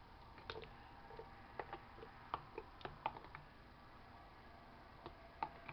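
Faint, scattered clicks and taps of handling noise while the latex-filled mold is worked, bunched in the first few seconds and again near the end.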